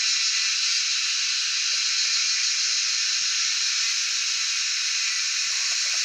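Cicadas singing: a loud, steady, unbroken high buzz.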